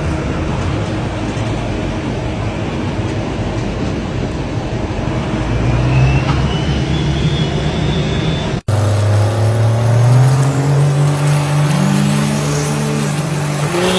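A heavy engine rumbling low, with a faint whistle rising in pitch. After a sudden cut, a diesel pickup's engine revs hard, its pitch climbing in steps.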